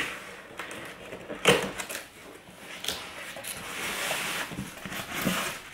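Unpacking a boxed outdoor lantern: a few sharp knocks of the cardboard box and its contents being handled, then a stretch of packaging rustling.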